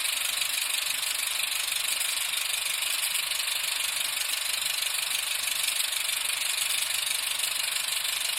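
A steady, dense rattling noise, mostly high and hissy with little bass, running evenly before stopping abruptly.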